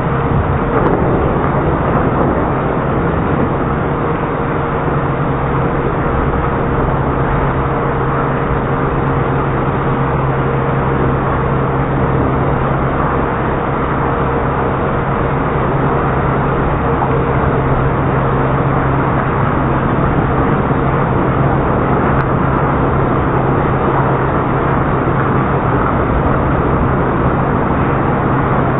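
Automatic car wash machinery running: a steady, loud noise with a low hum underneath and a faint higher tone that fades out about halfway through.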